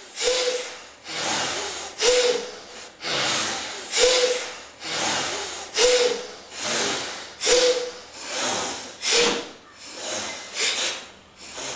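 Deep, rhythmic breathing in a breathing exercise. A short, forceful breath with a slight voiced edge alternates with a longer, softer one, about one cycle every two seconds, getting a little quicker near the end.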